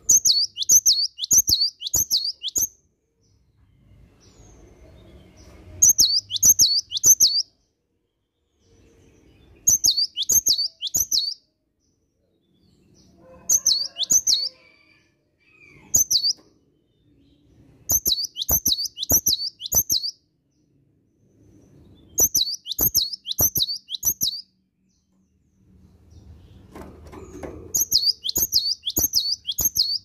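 Caged cinereous tit (gelatik batu) singing loudly in repeated phrases of four to six quick, down-slurred whistled notes, with short pauses between the phrases.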